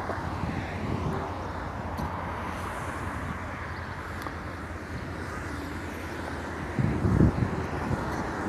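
Road traffic: a steady hum of cars driving along a town street, with louder low rumbling in the last second or two.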